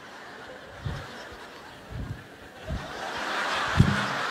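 Audience laughter in a large hall, swelling over the last second or two. A few short, low thumps sound during the laughter.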